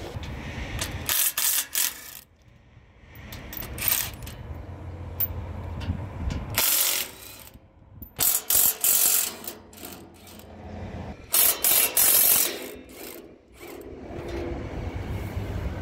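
An impact wrench (rattle gun) hammering in short bursts, about four of them, each about a second long.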